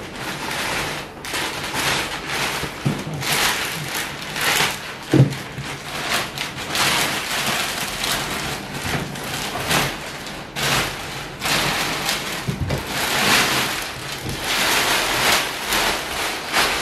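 Protective plastic wrap rustling and crinkling steadily as it is pulled off the back of a large flat-screen TV, with a few light knocks, the loudest about five seconds in.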